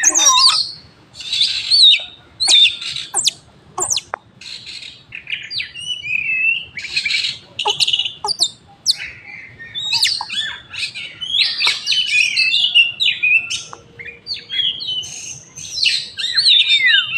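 Oriental magpie-robin (kacer) singing a long, varied song of rising and falling whistles mixed with harsh, scratchy phrases. A few sharp clicks come in the first few seconds.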